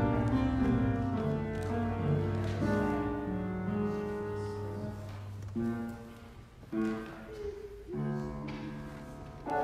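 Slow instrumental music on a keyboard instrument: held chords over a low sustained bass note that drops out about halfway, then a few separate chords with short gaps between them.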